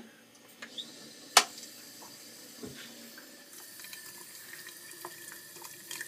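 Kitchen faucet turned on, water running steadily into a stainless steel sink. A single sharp click, the loudest sound, comes about a second and a half in.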